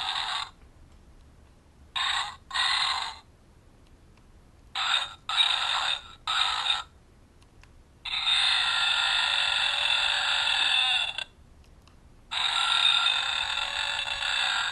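Burpmaster burping keychain playing recorded burps through its tiny speaker, tinny with no low end. First come several short burps, then a long drawn-out one of about three seconds, and another long one starting near the end.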